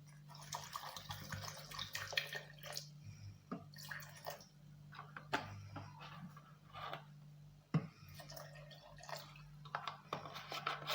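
Water poured into a container of juice mixture, splashing for the first few seconds, followed by scattered clinks and knocks of handling.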